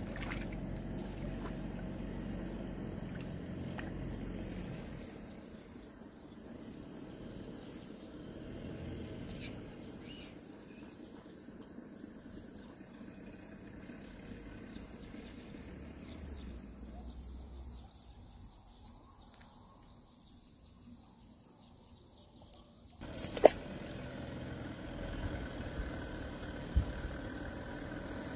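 Quiet riverbank ambience with a steady thin high whine. About two-thirds of the way through, a sharp click is followed by a low hum.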